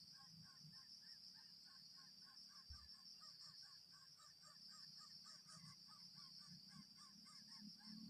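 Faint, rapid string of short nasal honking calls, about four a second, over a steady high hiss, with one soft low bump about three seconds in.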